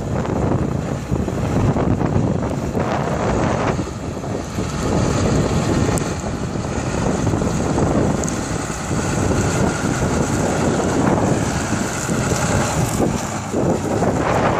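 Buhler Versatile 2180 Genesis tractor's diesel engine running, mixed with wind buffeting the microphone in uneven gusts.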